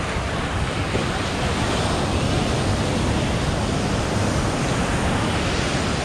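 Ocean surf breaking on the beach: a steady rush of waves washing in.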